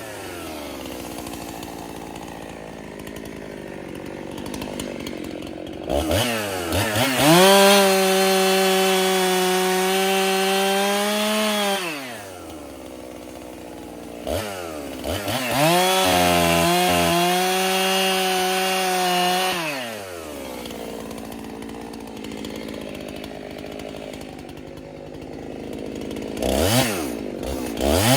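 Freshly rebuilt Husqvarna 371 two-stroke chainsaw cutting firewood: it idles, then runs at full throttle for about six seconds at a time, twice, with the pitch sagging under load in the cut, and drops back to idle in between. Near the end come a few quick throttle blips.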